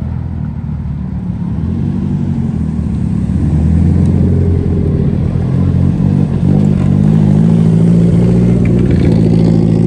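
Exhaust and engine of modified Nissan 240SX coupes rolling slowly past at low revs. The sound swells about a third of the way in and is loudest near the end as one car passes close.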